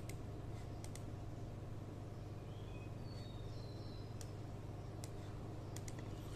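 Computer mouse clicking a few times over a steady low hum, with a few short faint high chirps in the middle.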